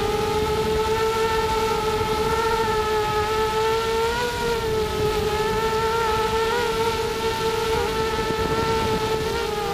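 ZMR250 FPV quadcopter's four 2300 kV brushless motors and propellers whining steadily, the pitch wobbling briefly a few times, heard from the onboard camera with wind rumbling on its microphone.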